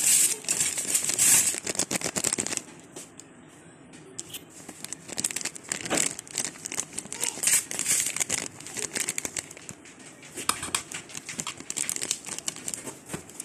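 Dense crinkling and crackling for about two and a half seconds, then scattered light clicks and scrapes as tikka masala powder is added and a steel spoon works it into yogurt-coated chicken on a ceramic plate.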